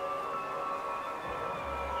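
Ambient installation music over outdoor speakers: several sustained, chime-like tones held steady and overlapping, with a short low rumble near the end.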